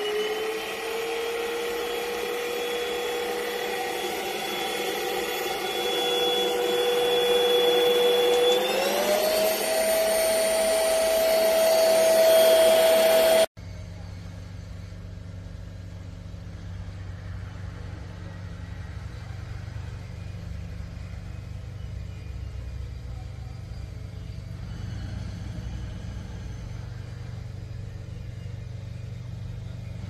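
Airbot Supersonics Aura cordless stick vacuum's motor finishing its spin-up to a steady high whine, then stepping up to a higher-pitched, louder whine about eight and a half seconds in as it runs faster. The whine cuts off abruptly around thirteen seconds in, leaving a quieter, steady low hum.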